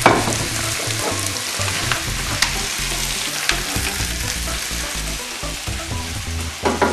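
Squid, prawns and mussels sizzling in olive oil with tomatoes in a frying pan: a steady frying hiss, with a few sharp clicks.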